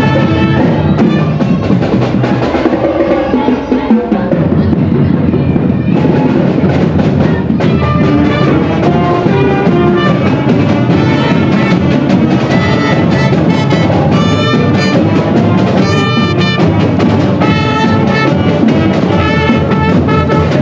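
Marching band playing: brass over drums with a steady beat, the lower parts dropping out and the texture changing about four seconds in.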